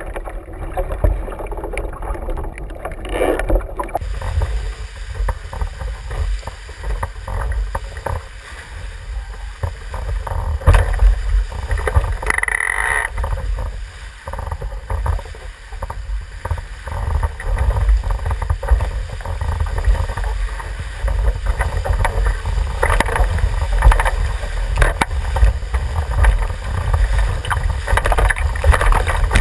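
Water rushing and spraying past the hull of a Javelin sailing skiff planing fast downwind, with wind buffeting the microphone as a heavy low rumble. For the first few seconds the sound is muffled, heard from under the water, before the camera comes up into the spray.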